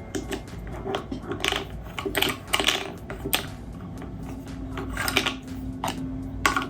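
Irregular clicks and knocks of small metal and hard plastic parts as an airsoft rifle's pistol grip is fitted to the receiver and its screw is worked with a flat-head screwdriver.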